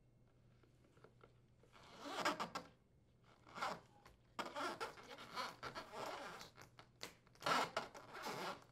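Corrugated plastic Electrolux dishwasher drain hose being pulled through the hole in the dishwasher's plastic base, its ribs rasping against the edge in several zipper-like scrapes.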